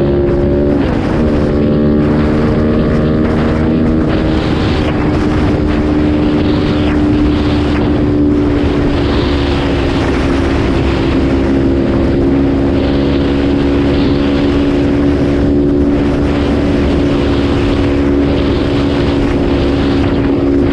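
Kawasaki KFX450R quad's single-cylinder four-stroke engine running while being ridden. The engine note changes pitch twice in the first four seconds, then holds steady at a cruising speed.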